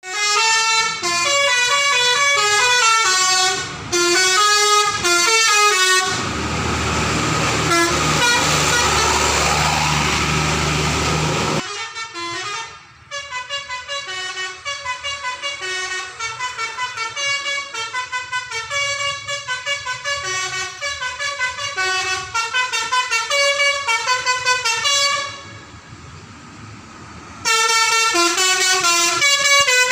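Basuri V3 telolet musical air horn on a Mutiara Mahkota Jaya bus, playing quick runs of stepping notes as melodic tunes. About six seconds in, the tunes give way for several seconds to a loud noisy blast with a low drone, then the melodies resume.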